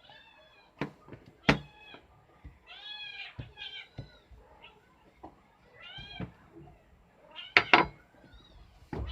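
A cat meowing repeatedly, about six short rising-and-falling meows, with a few sharp knocks about a second and a half in and again near the end.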